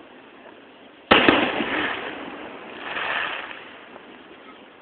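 Aerial firework shell bursting with one sharp bang about a second in, then a rumbling tail and a softer swell of its echo off the surrounding mountains.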